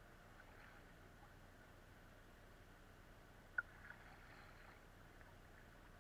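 Kayak paddling on calm water, heard only faintly as scattered small drips and swishes at near silence. One sharp click a little past halfway is the loudest sound.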